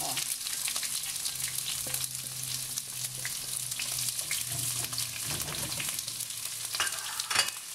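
Sliced onion sizzling steadily in hot oil in a nonstick wok, stirred with a silicone spatula that adds small scraping clicks. A sharper click comes near the end.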